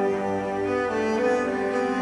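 Background music played by bowed strings, cello and bass, holding slow sustained notes.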